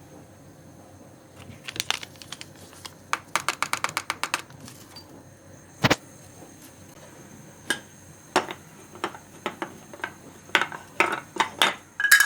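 Light clicks, taps and clatters of small hard objects being handled, with a quick rattling run of about a dozen clicks and a single sharp knock near the middle.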